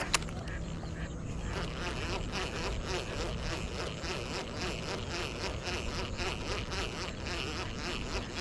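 Insects buzzing in a steady pulsing rhythm, about three pulses a second, with a single sharp click just after the start.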